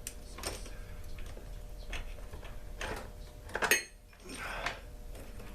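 Chainsaw parts and tools being handled on a workbench during disassembly: several separate metallic clinks and clatters, the loudest a little before four seconds in.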